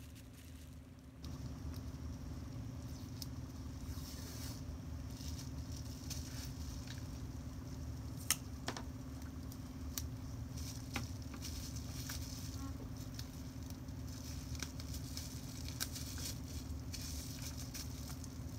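Plastic-gloved hands handling bubble wrap and washi tape: light crinkling and scattered sharp clicks over a steady low hum that comes in about a second in.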